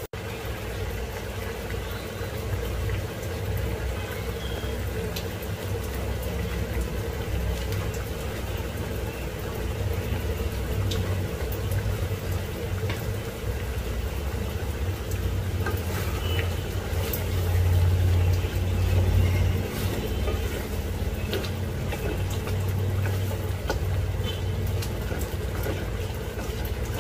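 Chicken curry simmering and bubbling in a pan, with scattered small pops over a steady low rumble that swells for a few seconds past the middle.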